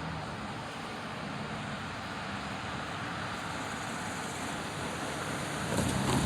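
Steady outdoor rushing noise with a low rumble, like wind and distant traffic, growing a little louder near the end.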